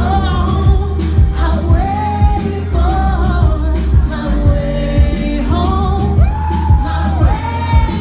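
Live hip-hop song played loud through a venue PA. A sung vocal hook carries over a beat with heavy bass and regular drum hits.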